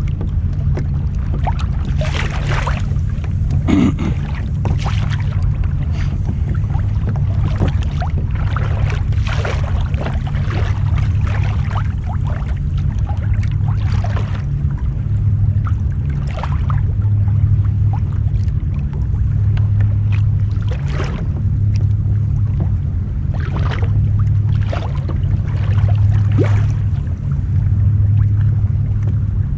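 Water sloshing and lapping against the hull of a Hobie Pro Angler 14 fishing kayak, in irregular short splashes over a steady low rumble that swells and fades about once a second in the second half.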